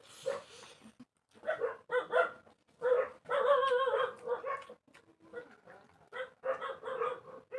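A dog whining and yipping in a run of short calls, with one longer wavering whine about three seconds in.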